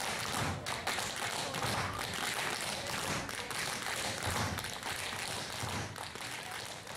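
A group of dancers tap dancing in unison, their shoes making a rapid, dense run of taps with heavier stamps every second or two.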